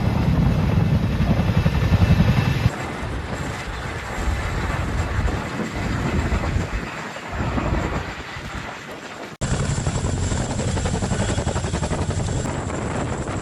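CH-47 Chinook tandem-rotor helicopter running, a dense, steady rotor and engine noise. It shifts abruptly in level and tone about three seconds in and again about nine seconds in.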